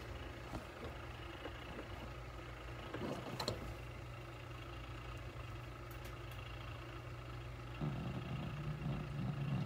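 Steady machine hum from the inhalation and oxygen therapy equipment running at the cat's cage. A lower, uneven rumble joins near the end.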